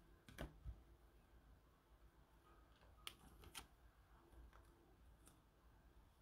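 Near silence, broken by a handful of faint clicks and light rustles as trading cards and a clear plastic card sleeve are handled.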